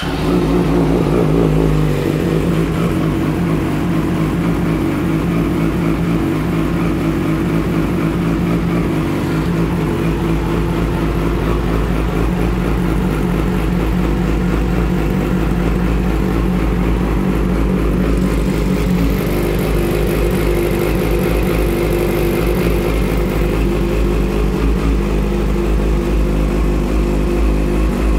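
2008 Yamaha YZF-R6's 600 cc inline-four engine idling steadily through a Two Brothers aftermarket exhaust, just after being started.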